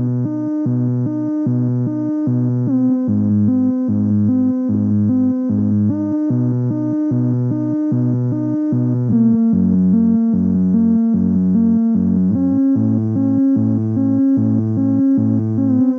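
Korg Volca Bass analog synthesizer playing a slow, looping sequenced pattern with delay and reverb, heard through a small practice amp. The notes repeat in a steady pulse, with short pitch slides between some of them, and the pattern shifts lower about nine seconds in.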